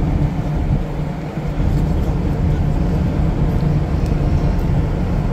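Steady low rumble of a large ferry's engines, heard from the open deck while it is under way.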